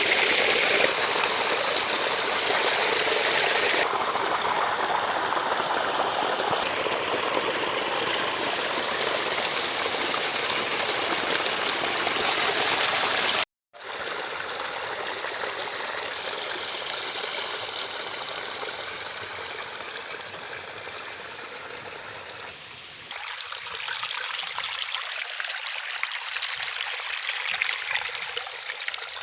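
Rainwater runoff running and trickling in a small stream: a steady rushing sound. The sound breaks off for a moment about 13 seconds in and changes in character again near the end, where the shots change.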